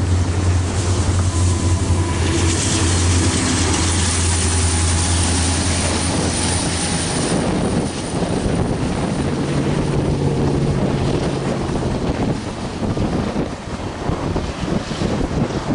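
Norfolk Southern diesel locomotives, an SD60E and a Dash 9, pass close by with their engines running in a steady low drone, loudest in the first seven seconds. The empty tank cars then roll past with a rumble and a run of clicks from the wheels.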